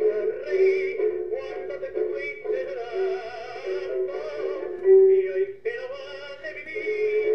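Tango music playing: a held, wavering melody line over accompaniment.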